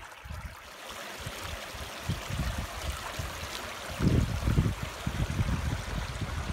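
Shallow spring-fed creek trickling over rocks, a steady hiss of running water. Low rumbling bumps on the microphone start about two seconds in and are loudest about four seconds in.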